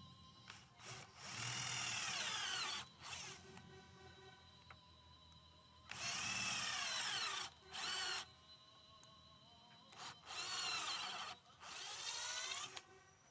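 Electric power drill run in several bursts of a second or two each, its pitch sweeping up and down within each burst.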